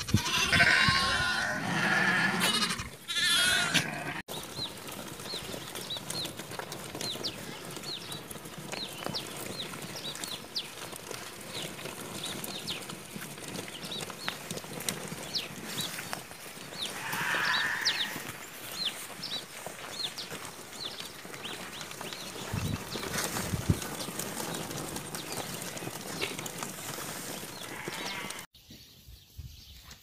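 White Dorper sheep and lambs bleating: loud, wavering calls in the first few seconds, then a quieter stretch with a steady hiss, quick high chirps, and another bleat around the middle.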